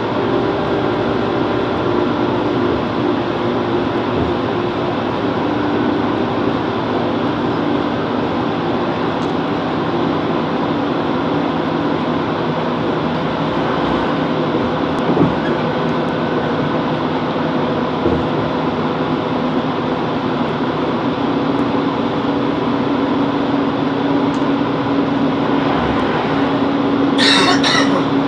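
Chiltern Railways Class 165 Networker Turbo diesel multiple unit running along the line: a steady drone of the diesel engine and wheels on rail, with a few faint ticks. A brief loud hiss comes near the end.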